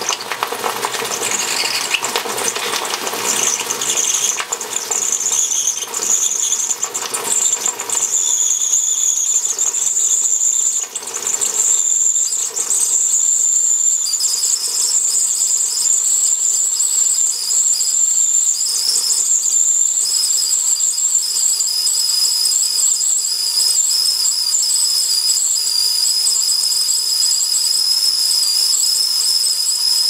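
Stainless steel whistling tea kettle coming to the boil, with water spitting from the spout. It sputters and hisses at first, then a high whistle settles in about eight seconds in, and a second, lower whistle joins it a few seconds later, both holding steady.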